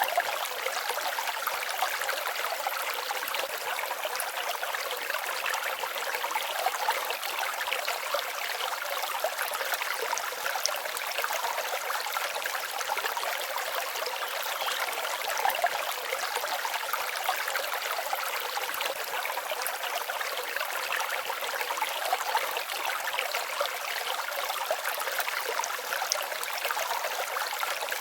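Forest stream babbling steadily: an even rush and trickle of water with no deep rumble.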